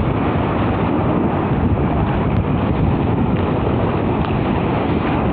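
Steady rushing wind noise on the microphone mixed with the wash of shallow sea water, with no distinct events.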